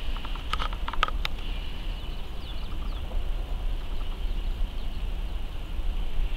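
Outdoor roadside ambience: a steady low rumble with faint bird chirps and a few light clicks about a second in.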